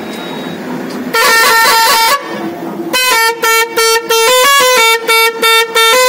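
Mahindra truck's newly fitted air pressure horn sounding. A one-second burst of quickly alternating notes comes about a second in, then a longer run of stepped notes, broken by short gaps, plays a tune through the last three seconds.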